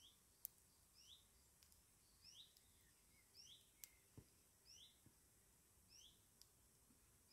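Faint songbird repeating a short, high two-note chirp about once a second, over a very quiet woodland background with a few soft clicks.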